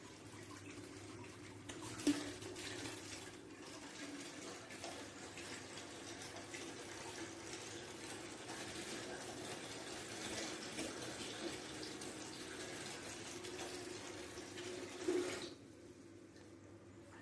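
Water running from a tap in a steady stream. It starts with a sharp click about two seconds in and is shut off abruptly near the end.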